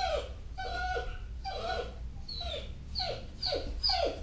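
A restrained dog whining in a series of short whimpers, each falling in pitch, about two a second.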